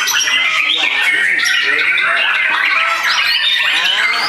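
Several white-rumped shamas (murai batu) singing at once in a songbird contest, their whistles, trills and rapid rising and falling phrases overlapping into a dense, unbroken chorus.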